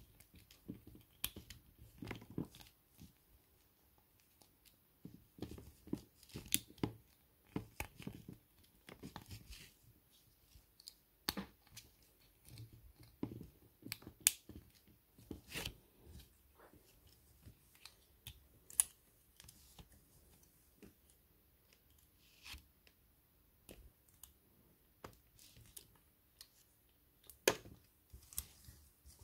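Small hard-plastic Playmobil figure parts being handled and fitted together: irregular light clicks, taps and scrapes, some sharper snaps among them.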